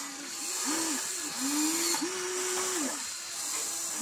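A Huina RC excavator's motors whining in several short spurts that rise and fall in pitch as the boom and bucket move.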